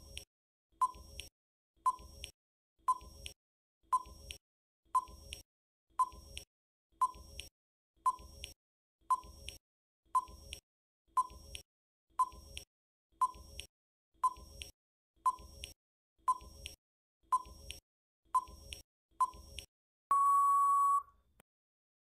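Quiz countdown timer sound effect: a short tick-beep once a second, about twenty times, then one longer steady beep of about a second near the end as the time runs out.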